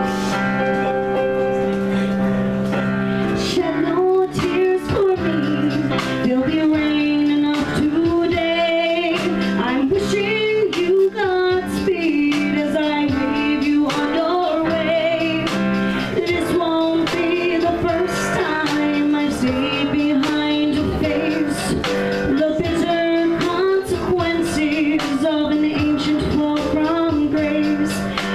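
A woman singing a slow musical-theatre ballad with piano accompaniment; the piano plays alone at first and the voice comes in about four seconds in, with a wavering vibrato on held notes.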